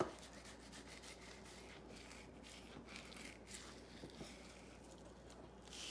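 Fillet knife sliding and scraping between a white bass fillet and its skin against a plastic cutting board: faint, repeated rubbing strokes as the meat is worked off the skin.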